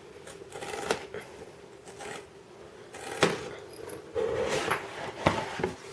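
Cardboard box being cut and pried open by hand, with scattered scrapes, rustles and several sharp clicks.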